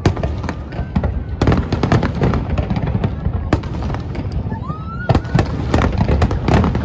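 Aerial fireworks going off in rapid succession: many sharp bangs and crackles over a dense low rumble, with a short rising whistle about two-thirds of the way through.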